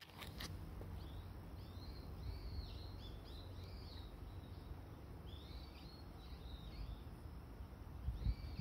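Small birds chirping in two bouts of short rising-and-falling calls over a low, steady outdoor rumble.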